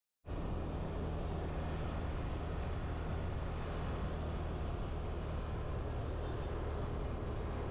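A vehicle's engine running steadily with road and wind noise while driving along a street, after a brief cut to silence at the very start.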